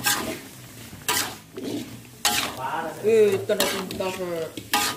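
Spatula stirring tofu and green beans in a wok, scraping and knocking against the pan in strokes about a second apart.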